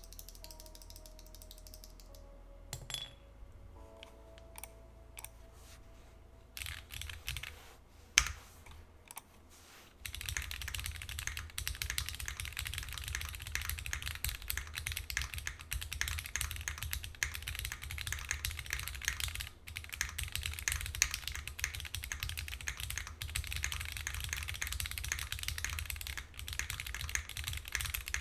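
Typing on a custom 60% mechanical keyboard in an aluminum case with a gummy O-ring mount and lubed Cherry MX Black Hyperglide linear switches. A few scattered keystrokes come first, then steady fast typing from about ten seconds in. The aluminum build has a little pinging and hollowness, which foam would fix.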